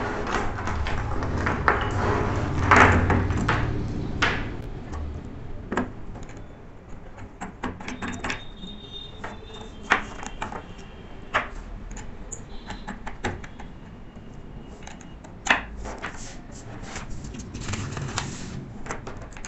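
Refrigerant charging hoses and a brass manifold gauge set being handled on a table: scattered clicks and light knocks of the fittings, with rustling and handling noise that is busiest in the first few seconds.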